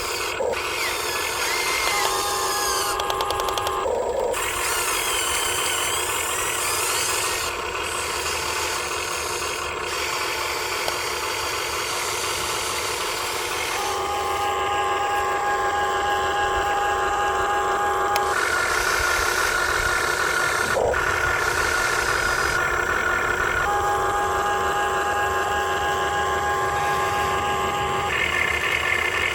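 Electric motors and plastic gearboxes of a Huina 1580 RC excavator whining as it works, the pitch jumping to a new steady note every few seconds as different functions switch on and off, with a few sharp clicks.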